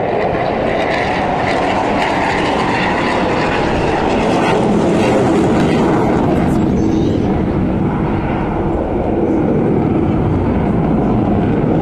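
Jet aircraft engine noise heard from the ground, a steady loud rumble that carries on without a break as the jet flies overhead.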